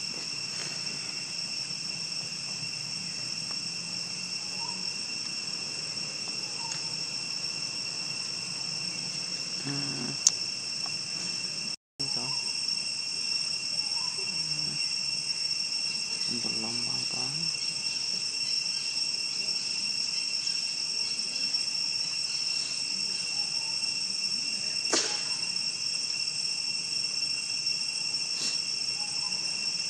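Steady high-pitched insect chorus holding two unchanging tones, with a sharp click about ten seconds in and a weaker one near twenty-five seconds. The sound cuts out for an instant near twelve seconds.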